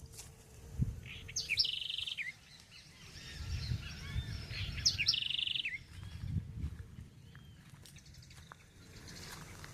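A songbird sings two short phrases about three seconds apart. Each opens with a high note, runs into a fast trill and drops in pitch at the end. Fainter chirps from other birds and a low rumble sit underneath.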